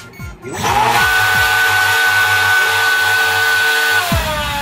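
The RC boat's electric drive motor runs up on the stand: a loud whine that rises quickly in pitch about half a second in, holds steady with a hissing rush, then drops in pitch near the end as the throttle comes off.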